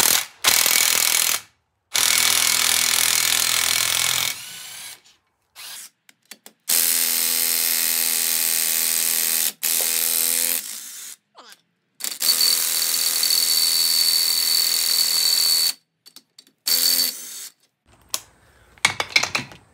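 Cordless WorkPro impact gun running in bursts of a few seconds each, with short pauses between, as it spins out cylinder head bolts that have already been broken free by hand. A few short bursts come near the end.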